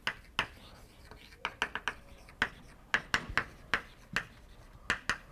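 Chalk writing on a blackboard: a string of short, sharp taps and scratches at an uneven pace as the letters are drawn.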